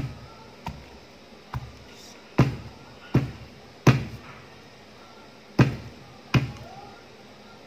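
Wooden pestle pounding damp flour in a mortar: about eight dull thuds at uneven spacing, with a pause of over a second in the middle.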